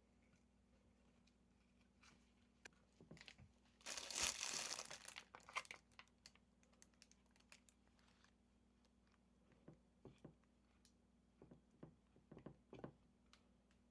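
Plastic packaging crinkling and tearing in one loud burst about four seconds in, followed by scattered light taps and clicks of food preparation.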